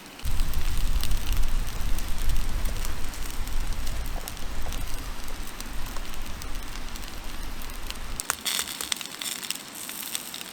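Fire crackling over a steady low rumble that starts suddenly. About eight seconds in, the rumble drops away and a bright hissing sizzle of food frying takes over.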